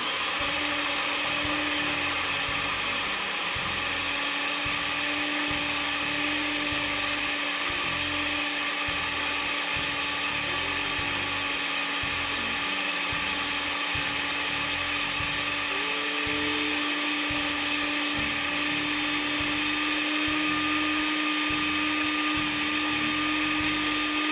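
Countertop glass-jar blender motor switching on and running steadily with a constant whine, puréeing a jar of beans into a smooth blend.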